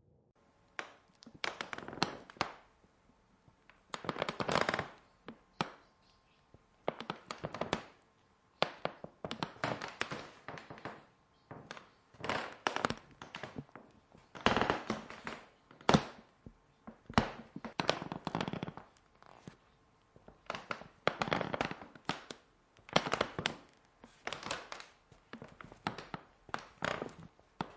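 Horror ambience sound effect: irregular clusters of crackling clicks, knocks and rustles, coming in bursts of about a second with short quiet gaps between them.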